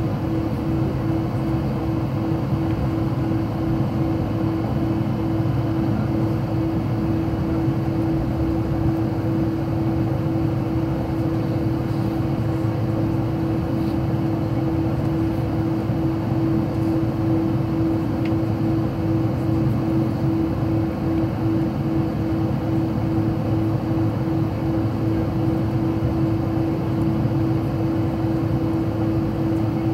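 Airliner cabin noise while taxiing: steady jet engine and airflow drone with a constant humming tone, heard from inside the cabin.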